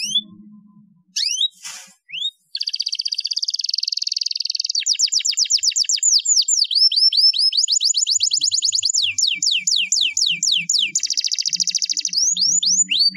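Domestic canary singing: a few short chirps, then from about two and a half seconds in an unbroken song that alternates buzzy trills with fast runs of falling whistled notes, several a second.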